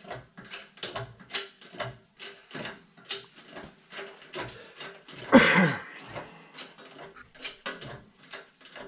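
Hand-pumped 40-ton hydraulic shop press pressing the shaft out of a John Deere mower deck spindle: irregular metallic clicks and clanks two or three times a second, with one louder creak that falls in pitch about five seconds in.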